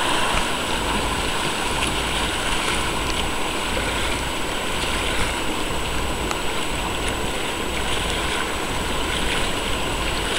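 Steady rushing of whitewater in a river rapid.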